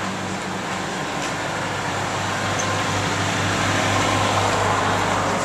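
Steady drone of a charter fishing boat's engine under way, with a rush of wind and water noise that grows a little louder about three seconds in.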